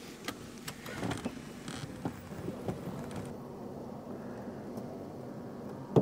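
Clicks and knocks from the camper's metal entry steps and door, then a steady electric motor hum as the truck camper's slide-out is run out.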